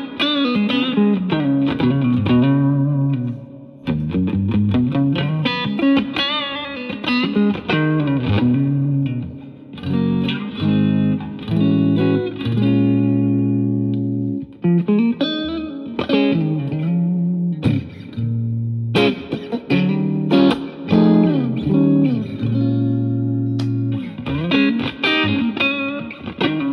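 Electric guitar, a Stratocaster with three single-coil pickups, played through a Yamaha THR10C modeling amp set to its Brit Blues amp model. Bluesy phrases with string bends alternate with held chords.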